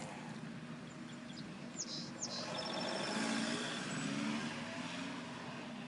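A vehicle passes, its noise swelling over a couple of seconds and then easing, over a steady low hum. A bird chirps briefly about two seconds in.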